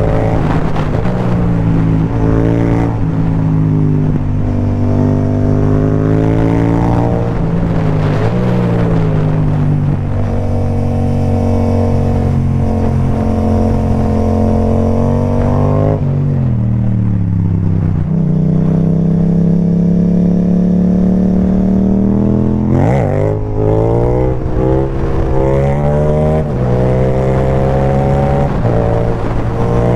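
Yamaha MT-07's parallel-twin engine through an Akrapovic carbon exhaust with the dB killer removed, accelerating hard through the gears: pitch climbs, then drops at each gear change. About halfway through it comes off the throttle, the pitch falling low, then revs up and pulls hard again.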